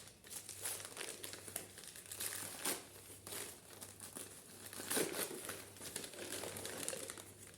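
Packaging crinkling and rustling in the hands as an item is unwrapped, in irregular bursts, with the loudest crackle about five seconds in.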